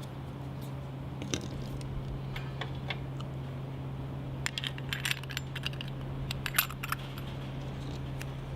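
Small metallic clicks and clinks in scattered groups, busiest about halfway through, over a steady low hum. These are the sounds of a steel BB revolver and its small metal parts being handled.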